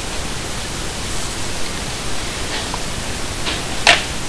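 Steady hiss of recording background noise, with one brief sharp sound near the end.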